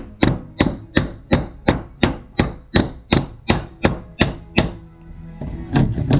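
Steel claw hammer driving a nail into weathered wooden porch decking: a steady run of about a dozen sharp strikes, roughly three a second. After a pause of about a second, a few quicker strikes follow near the end.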